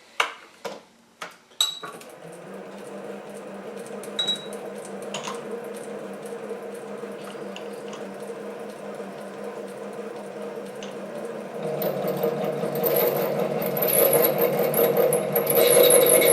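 A few clicks and knocks, then the SC2 mini lathe's motor starts and runs steadily. About twelve seconds in the sound grows louder and harsher, and near the end a high-pitched scraping joins in as the HSS parting tool cuts into 316 stainless steel.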